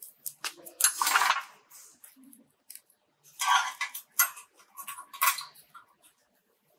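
Steel tie wire being twisted around crossed rebar with pliers: quick metallic clicking and scraping in two spells, one starting right away and one about three seconds in.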